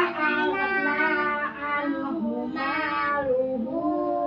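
Children's high voices chanting Quranic verses in Arabic, in a drawn-out sing-song with long held notes.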